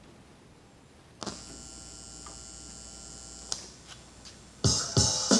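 Record playback on a vintage Philips 437 turntable starting up: a steady electrical hum comes on about a second in, a click about three and a half seconds in and a few faint ticks follow, then music from the vinyl record begins near the end, playing too fast.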